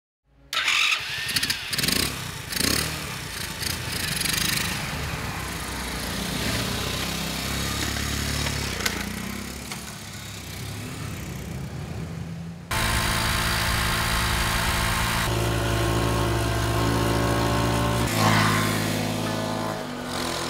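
A motorcycle engine starting up and revving unevenly, then running. About two-thirds of the way in the sound cuts abruptly to a steadier, even drone whose pitch shifts twice.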